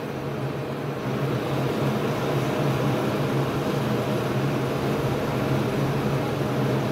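A steady low hum under a constant hiss, unchanging throughout, with no shot or impact in this stretch.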